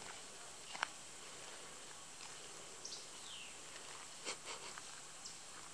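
Faint outdoor ambience: a steady high hiss with a few short, high chirps and clicks scattered through, one of them a brief falling note about three seconds in.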